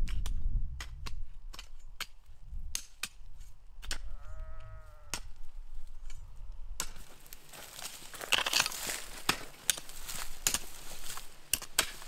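Hand hoes chopping into dry, stony soil: a series of sharp strikes, growing into denser chopping and scraping from about seven seconds in. About four seconds in, an animal bleats once.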